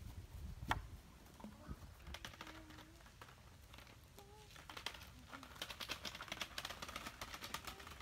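Child's bicycle with training wheels being walked along a gravel path: a run of fast, light ticking and crunching from the wheels on the gravel, starting about five seconds in.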